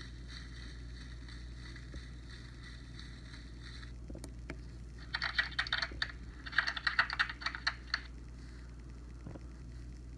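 Tiny sound modules of the kind found in musical greeting cards, sewn into fabric soft-sculpture tubes, playing back short field recordings through their small speakers: faint and thin at first, then two louder, choppy, crackly bursts of about a second each around the middle.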